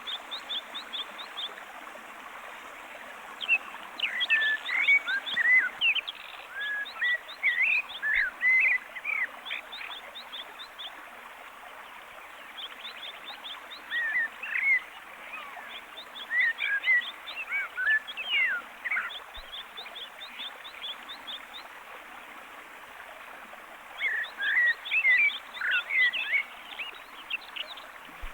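Birds chirping: clusters of quick, high calls that rise and fall, in three spells of several seconds each, over a steady background hiss of outdoor ambience, from an anime nature sound-effect track.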